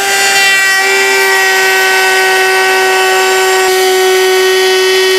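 Jupiter JRT-18P cordless brushless trim router running at full speed with a steady high whine, its bearing-guided 45° chamfer bit cutting along the edge of a wooden board.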